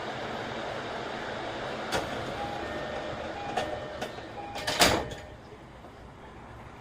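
Sliding passenger doors of an E233 series 3000 commuter train closing with a loud bang about five seconds in, after a few short chime tones and clicks. The cabin goes quieter once the doors are shut.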